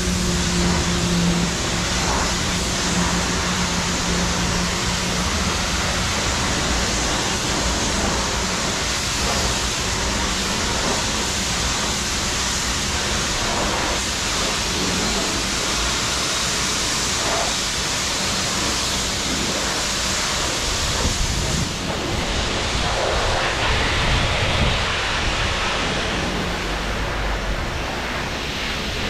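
High-pressure car-wash lance spraying water onto a car: a steady hiss and splatter of water that shifts in character about two-thirds of the way through.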